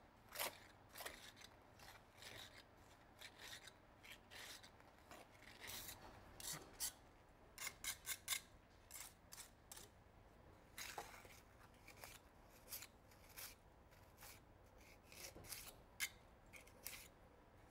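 Small steel tuck pointer scraping mortar off a trowel and packing it into a brick joint: a quiet run of short, irregular scrapes.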